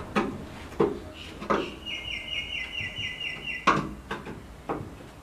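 A handful of sharp knocks of tools on the sheet metal of an old Daihatsu F10 cab, as a spot-welded floor panel is worked loose. In the middle a bird gives a quick trill of about nine short falling chirps.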